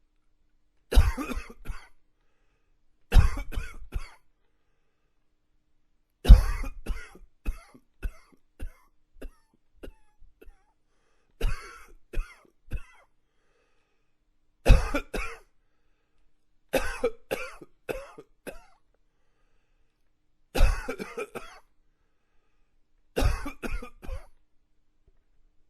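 A man coughing in about eight separate fits a few seconds apart, each a hard, loud cough followed by a few weaker ones; the fit about six seconds in trails off into a longer string of small coughs.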